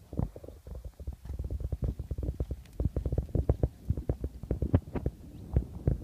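Low, irregular thuds of a horse's hooves on sand arena footing as it canters close past, several beats a second.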